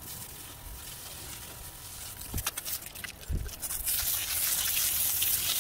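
A jet of water spraying onto a bonsai trunk wrapped in aerial roots: a hiss that grows louder over the last two seconds. Two dull knocks come in the middle.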